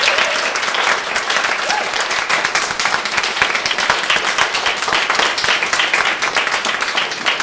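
Small audience applauding: many hands clapping in a dense, steady patter.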